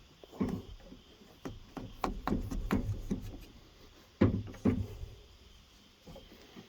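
Irregular knocks and taps, with some low bumping, as a rubber window gasket is pushed and worked into a pickup truck's door frame. About ten knocks come in the first five seconds, then it goes quieter.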